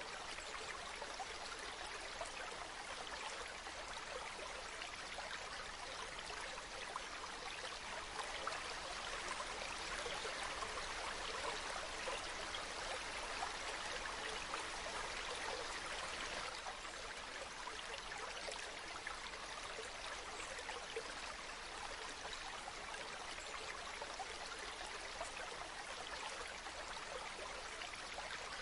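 Waterfall: water falling and splashing in a steady rushing hiss, a little louder around the middle.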